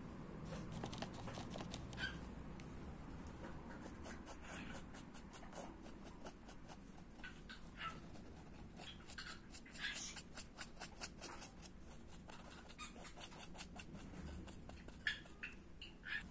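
Paintbrush strokes scratching and dabbing on canvas, a quick run of short strokes with a few faint squeaks.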